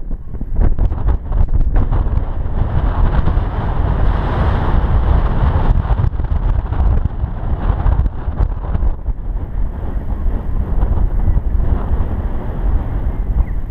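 Wind buffeting the camera's microphone: a deep rumble that rises and falls in gusts, with a rushing hiss over it that is strongest for several seconds in the middle.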